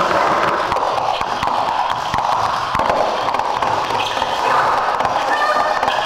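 Experimental live electronic music: a dense, continuous band of noisy electronic tone around the middle register, with wavering higher tones. Gliding pitched lines come in near the end.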